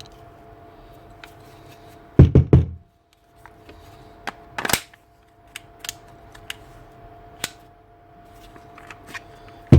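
Grinder parts being handled on a workbench: a quick run of heavy knocks about two seconds in, then a sharp clack and scattered light clicks and taps, over a faint steady hum.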